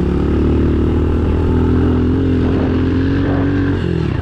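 Pit bike's small single-cylinder engine running hard at a steady high pitch while riding across grass, the pitch falling off near the end as it eases off the throttle.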